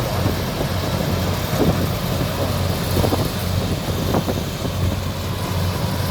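Rice combine harvester running steadily, its diesel engine giving an even low drone.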